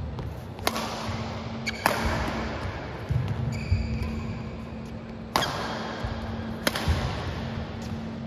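Badminton rackets striking the shuttlecock in a rally: four sharp hits, the first two about a second apart and the last two about a second apart, with a longer gap between, and a short shoe squeak on the court midway. A steady low hum runs underneath.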